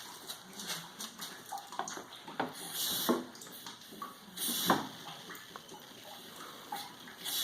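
Wet paper-and-sawdust pulp sloshing, with scattered knocks as a homemade briquette press mold is fitted and handled. Two short bursts of hiss come about three and four and a half seconds in.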